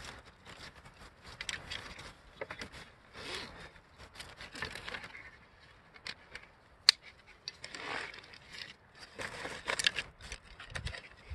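Shed elk and mule deer antlers knocking and scraping against each other, with rustling pack straps, as they are handled and strapped onto a loaded pack frame. The sound is scattered light clicks and scrapes, the sharpest one about seven seconds in.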